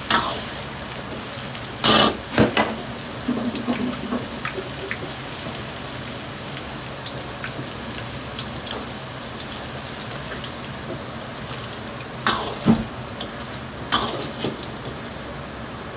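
Oil sizzling and crackling in a carbon-steel wok as small pieces fry, with many small pops over a steady low hum. A metal ladle clinks and scrapes against the wok a few times, about two seconds in and twice near the end.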